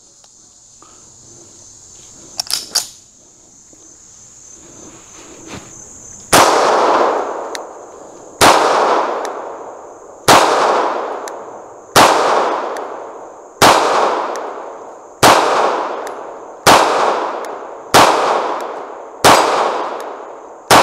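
CZ 75 SP-01 Competition 9mm pistol fired about ten times at a steady pace, roughly one shot every one and a half to two seconds, each shot trailing off in a long echo. The first shot comes about six seconds in, after a couple of small handling clicks.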